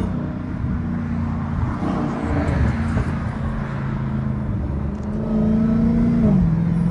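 Dodge Hellcat's supercharged V8 running steadily while driving. Its note drops in pitch near the end.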